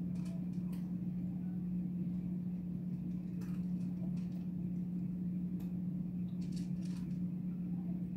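A steady low hum, with faint light clicks now and then from fingertips tapping a phone screen.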